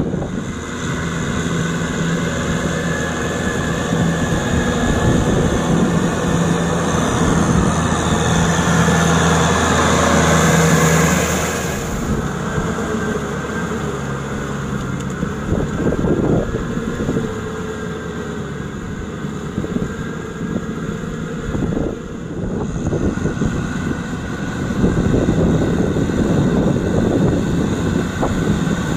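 Kubota M6040SU tractor's four-cylinder diesel engine running steadily under load while it pulls a rotary tiller through a wet paddy field. The sound shifts abruptly about twelve seconds in and again around twenty-two seconds.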